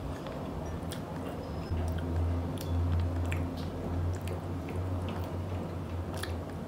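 Close-up biting and chewing of cheese-powdered french fries, with scattered small mouth clicks. A low hum sits under it for a few seconds in the middle.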